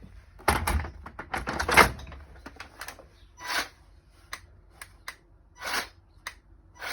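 Clacks and knocks from handling a handheld cordless hedge trimmer, then several short bursts as it is switched on briefly and its blades move a little each time, to bring them into position for sharpening.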